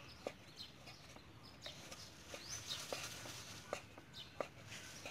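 Cleaver chopping raw pork on a wooden cutting board: about seven sharp, irregular knocks. Faint bird calls in the background.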